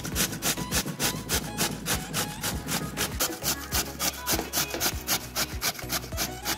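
Bottle gourd being grated on a stainless-steel box grater: quick, even rasping strokes, about five a second.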